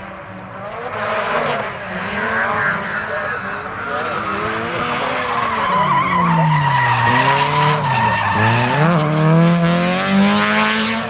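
Drift car's engine revving hard, its pitch swooping up and down again and again, with tyres squealing and skidding as the car slides sideways through a corner. It grows louder about halfway through.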